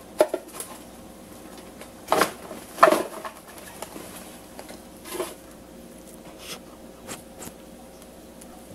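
Cat forcing its way in under a door, cans shifting and clattering under its paws in a handful of irregular knocks and rattles, loudest near the start and two to three seconds in, with smaller ones after.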